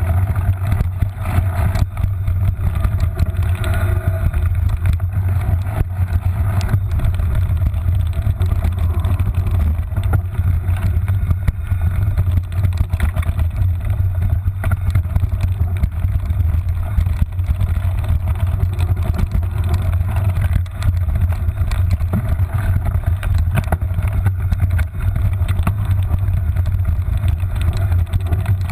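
Mountain bike descending a rough dirt trail, heard through a handlebar-mounted action camera: a loud, steady low rumble of wind and vibration, with frequent short knocks and rattles as the bike hits bumps.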